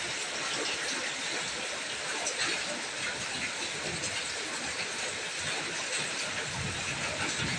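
Steady rain falling on a wet concrete patio and potted plants: an even hiss with scattered drop ticks, and a brief low rumble near the end.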